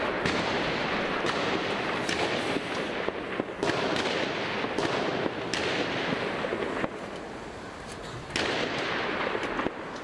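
Scattered sharp bangs, about eight of them, roughly one every second or so, over a loud, steady background din.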